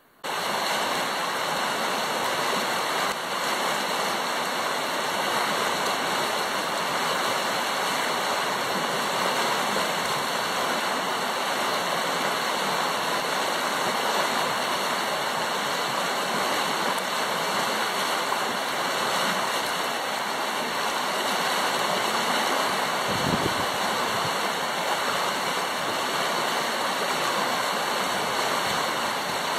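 River water rushing through a shallow rapid, churning white over submerged stones: a steady rush of water.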